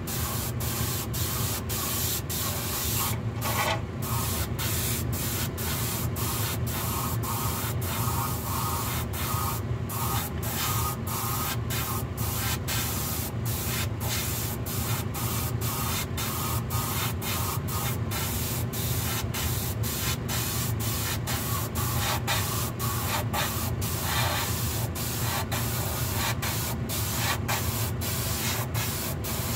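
Small siphon-feed airbrush hissing steadily as it sprays paint, the hiss broken by short regular gaps about three times a second. A steady low hum of an exhaust fan runs underneath.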